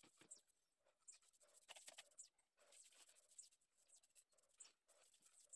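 Faint bristle scratching of a paintbrush stroking a liquid finish onto a turned cumaru wood bowl, in short strokes about once a second.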